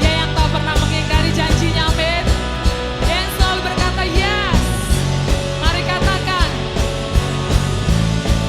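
Live worship band playing an upbeat instrumental passage: steady drum beat and bass, with a high lead line that slides up and down in pitch.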